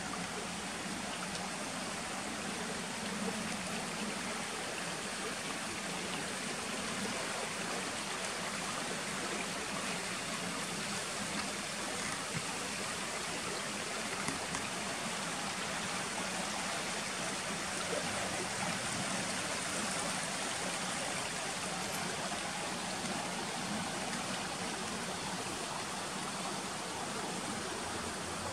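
The Doubrava, a small river, rushing steadily over boulders in rapids.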